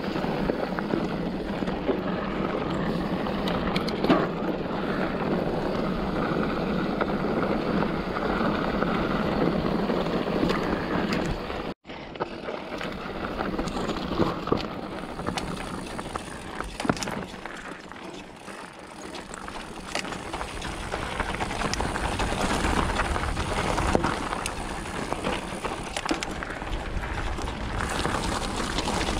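2021 Polygon Siskiu N7 mountain bike ridden along a dirt trail: a steady rush of tyres on dirt with scattered rattles and knocks from the bike. The sound drops out for an instant about twelve seconds in.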